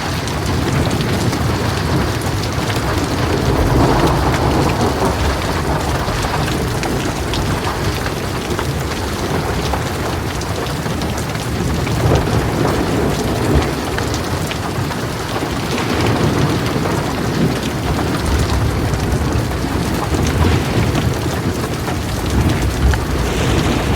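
Heavy rain falling steadily, with thunder rumbling low beneath it and swelling several times.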